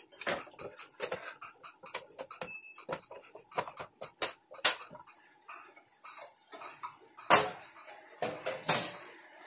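Clicks, light knocks and metallic rattles from a sheet-metal amplifier cabinet being handled and its cover taken off, with two louder knocks near the end.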